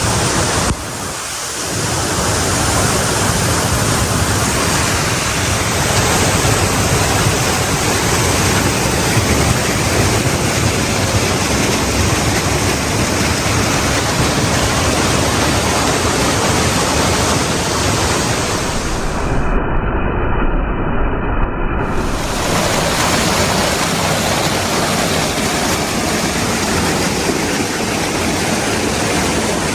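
Waterfall and rapids in a narrow rock canyon: a loud, steady rush of fast water at high flow.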